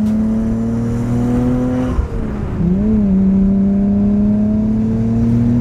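Tommy Kaira R32 Skyline GT-R's twin-turbo straight-six running under way, its pitch climbing slowly. About two seconds in the pitch drops and wavers with a gear change, then settles and climbs slowly again.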